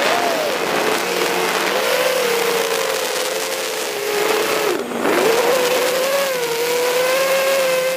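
FPV quadcopter's motors and propellers whining, heard from the camera on the drone itself, over a hiss of rushing air. The pitch wavers as the throttle changes, and just before five seconds in it drops sharply and climbs straight back.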